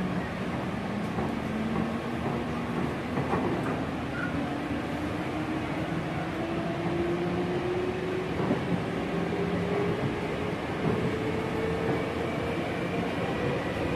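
Hankyu 5000 series resistance-controlled electric train running, its traction motor whine rising steadily in pitch as the train gathers speed, with a few short knocks from the wheels.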